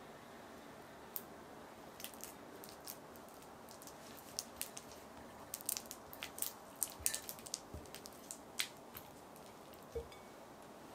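Close-up food-preparation sounds: scattered sharp clicks and light squishy taps of hands or utensils working food, busiest in the middle, over a steady hiss.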